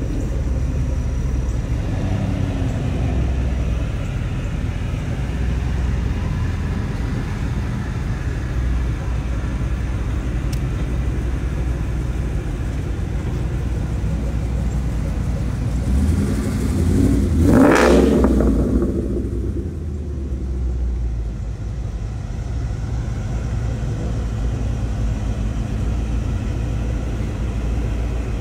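Steady low rumble of car engines. About two-thirds of the way through, one car comes close and passes by, growing louder to a peak and then fading.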